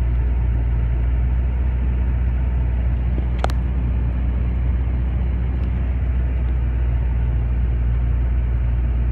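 Steady low drone of a vehicle's engine and road noise heard from inside the cabin while driving, with one brief sharp click about three and a half seconds in.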